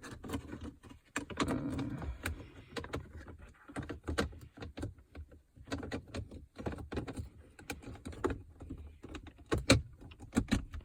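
Plastic centre-console trim of a Holden VF Commodore being handled and fitted back around the gear shifter: a run of irregular clicks, taps and scraping rubs, with a couple of sharper clicks near the end.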